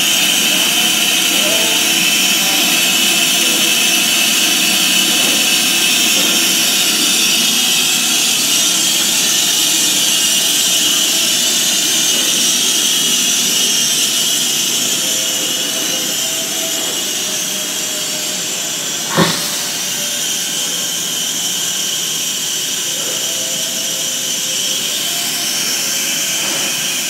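Pere Marquette 1225, a 2-8-4 Berkshire steam locomotive, standing with steam hissing steadily. A single sharp knock about two-thirds of the way through.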